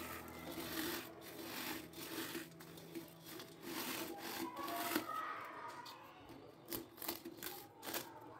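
A hand crushing crisp fried corn flakes (makka poha) against a stainless steel bowl, grinding them to a coarse powder: dry, irregular crunching and scraping of the flakes on the metal.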